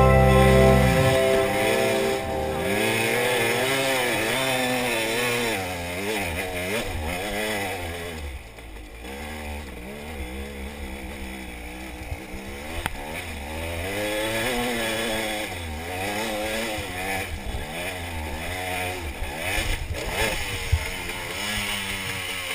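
KTM dirt bike engine revving up and down under the throttle, its pitch rising and falling every second or so as the bike climbs a steep trail. Near the end come a few sharp knocks.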